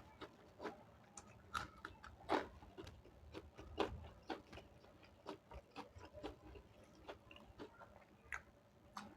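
Close-miked chewing and wet mouth smacks of someone eating dal and rice: irregular soft clicks, a few louder ones.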